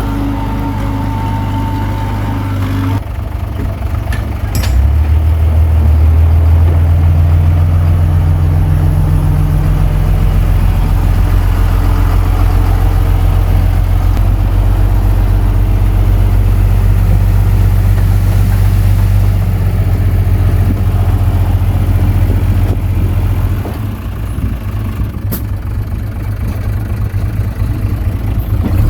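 Komatsu D21P bulldozer's diesel engine running, rising to a louder, heavier pull about five seconds in as it works, then easing back to a lower run near the end.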